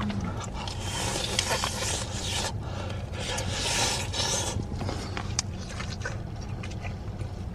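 Crisp fried chicken crust crackling and rasping as a piece is handled and torn or bitten into, in two stretches of a second or so each. A low steady hum runs underneath.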